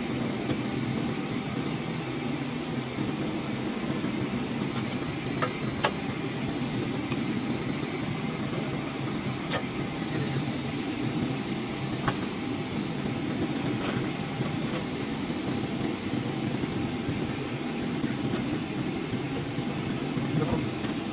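Steady machine drone with a faint high whine running under it, and a few faint light clicks scattered through.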